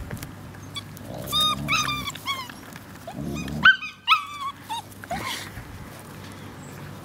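Young puppies yelping and squealing in runs of short, high-pitched cries while play-fighting with an adult dog, the loudest cries about three and a half to four seconds in. A brief low growl comes just before them.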